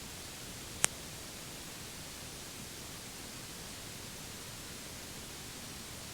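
Steady faint hiss from the Citation M2's cockpit radio and intercom audio feed, with no transmission on it and one sharp click about a second in.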